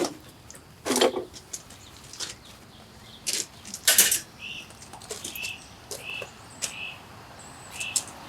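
Irregular knocks and clicks of hand work on a metal electrical box, with three or four louder strikes, and short high chirps or squeaks in the second half.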